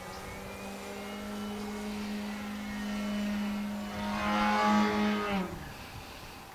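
Electric brushless motor and propeller of a 65-inch U Can Do 3D RC plane on a 6S battery, giving a steady droning whine in flight. The whine grows louder about four seconds in, then its pitch drops sharply and fades away about five and a half seconds in.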